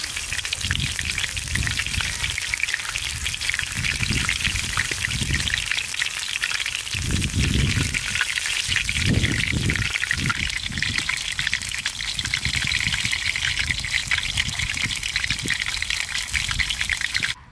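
Oil sizzling and crackling steadily in a wok as tilapia fries, a dense spitting hiss that stops abruptly at the very end.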